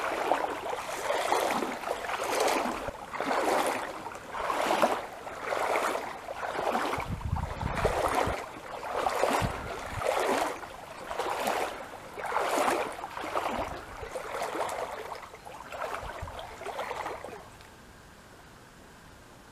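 Paddle strokes in river water, a swish and splash about once a second, with a few low knocks. They stop suddenly near the end, leaving a faint steady hiss.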